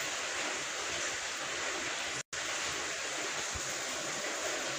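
Steady hiss of rain, broken by a brief dropout to silence a little over two seconds in.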